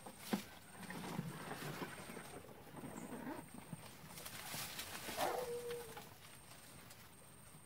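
Muddy water splashing and sloshing as a 20-litre plastic water-container fish trap is pushed down and wedged into shallow water among palm fronds. There is a sharp knock about half a second in.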